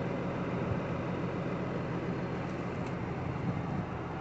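Tractor diesel engine running steadily under load, pulling a subsoiler through moist soil.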